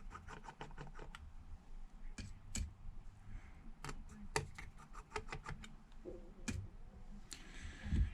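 Irregular small clicks and taps of a precision Phillips screwdriver backing out the tiny internal screws of an iPad, with a quick run of clicks about halfway through and a brief hiss near the end.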